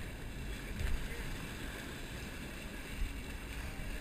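A boat under way: water rushing and churning along the hull over a low rumble, with wind buffeting the microphone and a couple of dull bumps.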